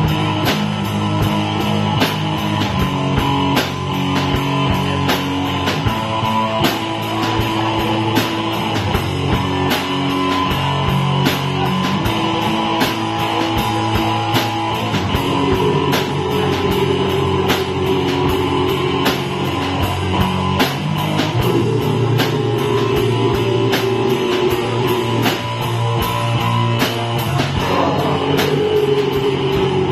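Live rock music from an electric guitar and a drum kit playing a steady beat. In the second half a pitch slides downward several times.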